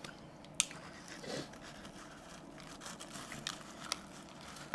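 Person biting into a sev-topped dahi kachori: a few sharp crisp crunches of the fried shell and sev, the loudest just over half a second in, with soft eating sounds between them.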